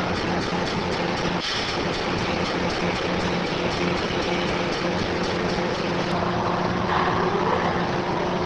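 Bulk bag unloading equipment running: a continuous machinery hum over steady noise.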